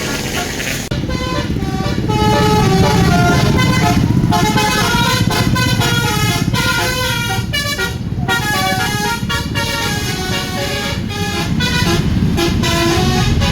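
Indonesian tour bus's 'telolet' multi-tone horn playing a quick melody of stepped notes, starting about a second in and broken by a few short pauses, over the bus's engine running.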